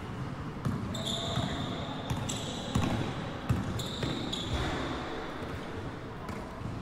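A basketball bouncing on an indoor court in a large sports hall, with sneakers squeaking briefly on the floor several times and faint players' voices.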